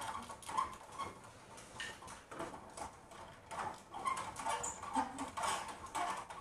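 Horizontal window blinds being closed, the slats rattling and clicking irregularly.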